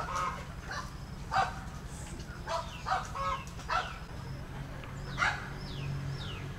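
Several short, sharp animal calls spaced irregularly, with a few thin, high, falling chirps between them.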